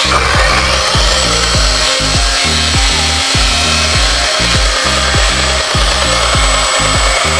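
Chainsaw running and cutting steadily, over background music with a steady beat.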